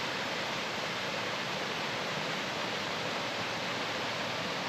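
Steady rush of flowing stream water, an even hiss that holds unchanged throughout.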